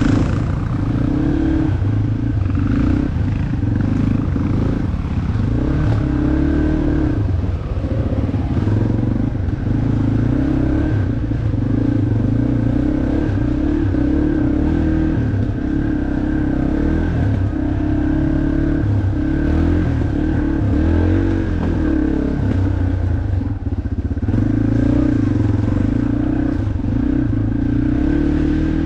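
Yamaha off-road motorcycle engine running as the bike is ridden, its note rising and falling a little with the throttle.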